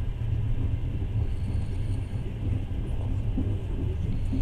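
Passenger train running at speed, heard from inside the carriage: a steady low rumble of the wheels and running gear.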